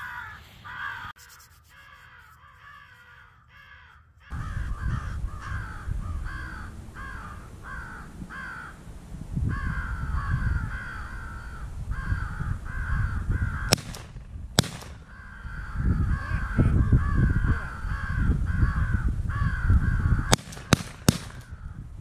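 Crows cawing over and over in a steady series, with wind rumbling on the microphone from about four seconds in. Sharp cracks stand out twice around the middle and in a quick cluster near the end.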